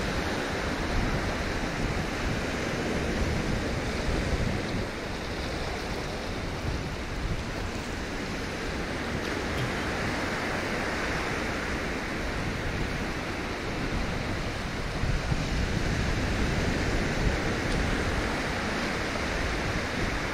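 Sea surf washing on the shore: a steady wash of noise with an uneven low rumble underneath.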